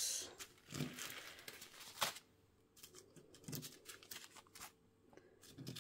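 Small plastic bags of leftover square diamond-painting drills being handled and moved about in a box: faint crinkling and rustling with scattered light clicks.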